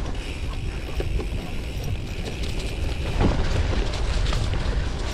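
An off-road bicycle rolling fast down a dirt forest trail: wind buffeting the microphone, tyres on dirt and leaf litter, and short clicks and rattles from the bike over bumps. A steady high hiss stops about three seconds in.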